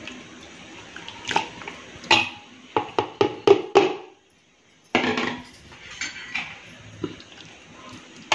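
A spoon knocking and scraping against a pressure cooker and serving bowl as chunks of marinated chicken are tipped and spread onto rice, with a quick run of about five sharp knocks around three seconds in. The sound drops out briefly just after four seconds, then scraping resumes.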